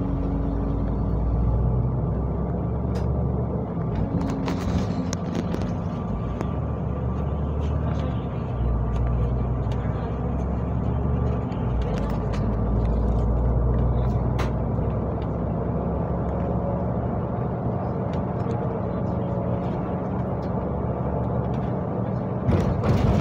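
City bus running under way, heard from inside the cabin: steady engine and road noise, the engine note shifting a few times, with a few short knocks and rattles.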